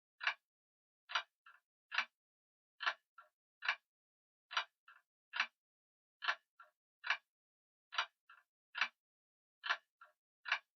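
Grandfather clock ticking at a steady pace, a little faster than one tick a second, each sharp tick followed by a fainter click.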